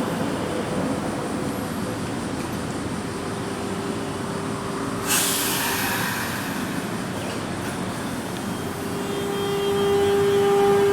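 Nankai 2000-series electric train at the station: steady running noise with a held low tone, and a short burst of air hiss about five seconds in. The noise grows louder near the end.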